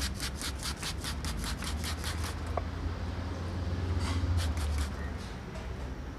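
Fast back-and-forth rubbing strokes on a plastic bike headlight lens, about five a second, stopping about two seconds in. A few scattered scrapes follow over a steady low rumble.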